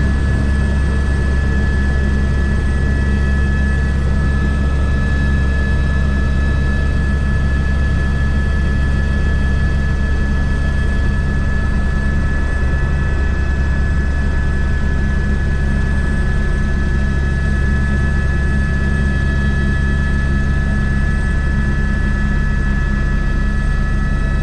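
Airbus H125 helicopter running steadily: a deep, even drone from the rotors with a steady high whine from the turbine and gearbox over it, unchanging throughout.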